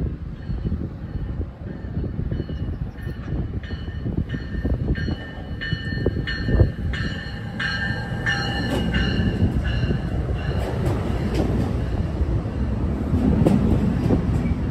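An NJ Transit multilevel push-pull commuter train approaching and rolling along the platform, its cab-car bell ringing at about two strikes a second for several seconds. The low rumble of wheels on rail grows louder near the end as the double-deck cars come alongside.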